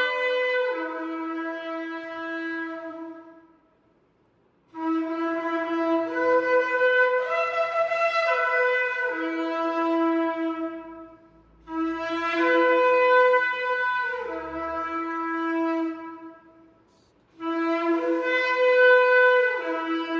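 A shofar (ram's horn) sounding a series of long blasts separated by short breaks for breath. Each blast steps between a low note and a higher overblown note.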